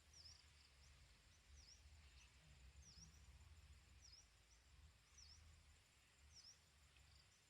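Faint outdoor quiet: a small bird's short chirp repeated about once a second over a low rumble.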